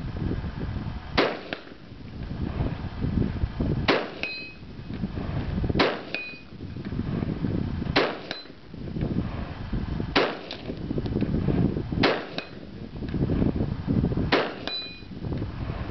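Seven rifle shots about two seconds apart, each followed a fraction of a second later by the clang of the bullet striking a distant steel target. Several of the hits ring on briefly.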